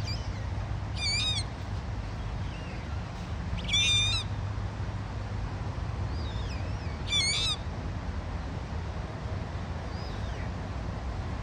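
Dusky moorhen chick giving high, quavering squeaky calls: three loud ones a few seconds apart, with fainter calls between.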